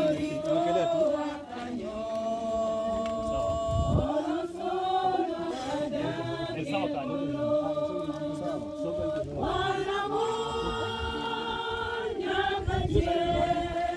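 A group of people singing together without instruments, in slow phrases of long held notes.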